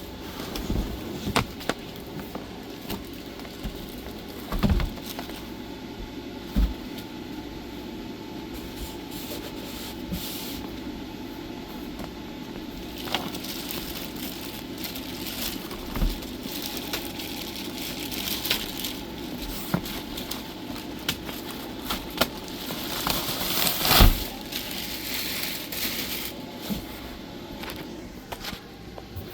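Unboxing noises: packaging and accessories being handled, with scattered knocks and clicks as parts are set down. Near the end comes a longer stretch of crinkling plastic with the loudest knock.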